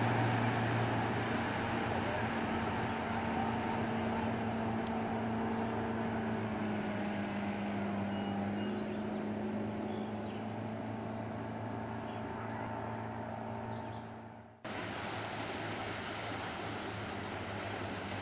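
Motorboat engine running at speed while towing, a steady drone over the hiss of spray and wake; its pitch drops slightly about seven seconds in. Near the end the sound cuts out briefly and returns as mostly water and wind hiss with the engine fainter.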